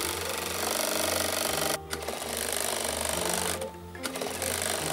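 Small electric motor of a My Amazing Butterfly toy playset, whirring with a rapid mechanical chatter as it swings the clipped-on butterfly in its fluttering flight around the pot. The buzz dips briefly twice.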